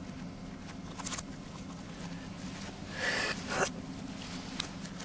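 Clear plastic bag crinkling as a hand pulls it open: a short rustle about a second in and a longer, louder one about three seconds in, over a steady low hum.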